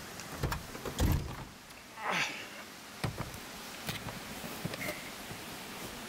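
A car's passenger door being unlatched and pushed open: a deep clunk about a second in, then a brief falling creak as it swings, with a few small clicks and knocks from the door and its handle.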